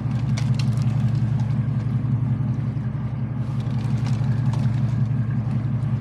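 A boat's engine running steadily under way, a low even drone with a fine rapid pulse, with water and wind hiss over it.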